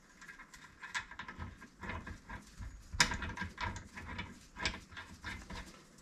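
Swivel ball pin being lapped into its cup with grinding paste: an uneven, gritty scraping with clicks, the sharpest about three seconds in.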